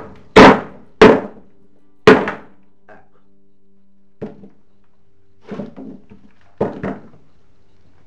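A wooden baton hammering on the spine of a Victorinox Swisschamp pocket knife to drive its blade into a very hard, dry wooden stake: three loud, sharp knocks in the first two seconds, then a few lighter knocks and taps. The blade barely bites into the hard wood.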